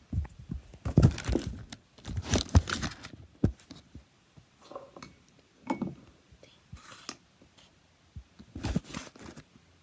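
Pink slime being squished and stretched by hand: irregular crackling, clicking squelches, densest in the first few seconds, then sparser with another flurry near the end.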